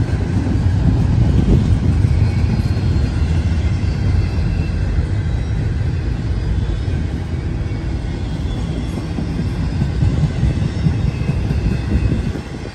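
Double-stack intermodal container train rolling past, its well cars' wheels on the rails giving a steady low rumble that turns quieter near the end.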